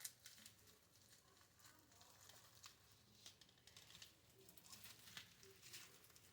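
Near silence with faint, scattered clicks and light taps.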